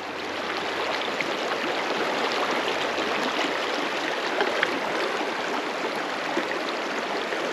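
Creek water running steadily, spilling through a small concrete irrigation diversion into a pool.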